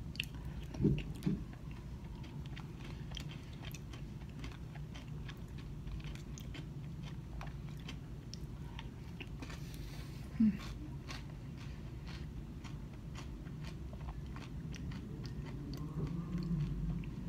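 A person chewing mouthfuls of acai bowl close to the microphone, with many small wet mouth clicks and soft crunching over a steady low room hum. A couple of brief low knocks come about a second in and another about ten seconds in.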